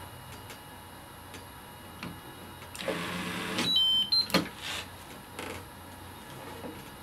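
Delvo brushless electric screwdriver running for just under a second at a low set speed (600 rpm, soft fastening) as it drives the joint on a torque checker, then stopping at its set torque. A quick run of high electronic beeps at two pitches follows, then a few sharp clicks and knocks.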